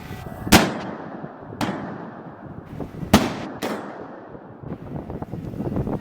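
Four sharp explosive bangs, each with a short echoing tail. The first comes about half a second in and the next a second later, then two follow close together about three seconds in, over a low steady background noise.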